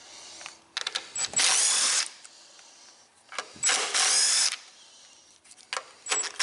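Power drill-driver spinning in three short bursts, about two and a half seconds apart, backing out fasteners during the engine teardown.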